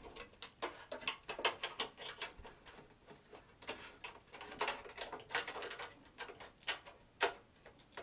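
Thin sheet-metal rear I/O shield clicking and tapping against the steel case's rear opening as it is pushed and worked into place, a run of light, irregular clicks with a few sharper ones.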